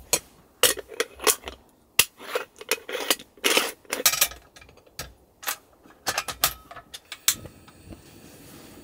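A moka pot being put together: metal parts clicking and knocking, with short scrapes as the top is screwed onto the base. Near the end it is set on a portable gas stove, a sharp click followed by a faint steady hiss as the burner lights.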